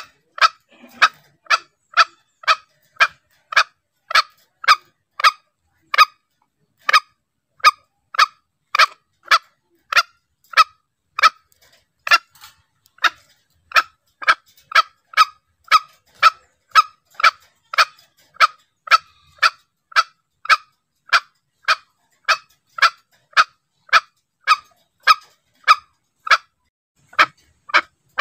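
Green junglefowl lure call: a short, sharp fowl call repeated evenly, a little under twice a second, used to bring both cocks and hens in close.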